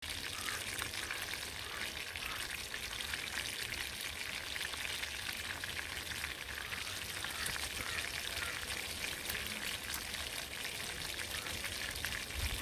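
Banga Mary fish frying in hot cooking oil in a pot, still on their first side: a steady, dense crackling sizzle.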